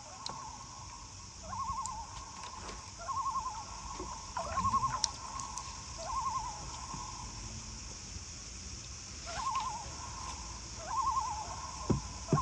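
Common loon calling: a run of quavering, warbling phrases repeated about every second and a half, with a pause of a few seconds midway.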